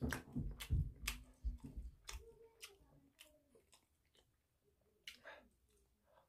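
A person chewing fried food close to the microphone, with wet mouth clicks and smacks. The chewing is loudest in the first two seconds, then eases off to scattered clicks, with a brief cluster of mouth sounds about five seconds in as another piece goes into the mouth.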